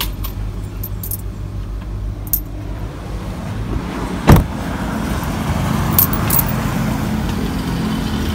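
Low steady hum inside a car with a few small clicks and rattles, then a car door slammed shut about four seconds in. After it comes the steadier, fuller noise of the roadside outdoors.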